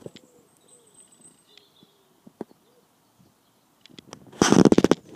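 A pigeon cooing faintly for the first couple of seconds. Near the end comes a brief, loud burst of rapid crackling noise.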